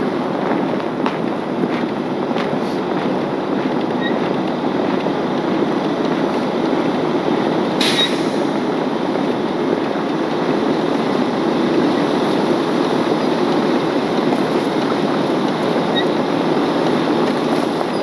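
Heavy wrecker's engine and hydraulic winch running steadily while the winch cable pulls on a snow-buried pickup, with one sharp metallic clank about eight seconds in.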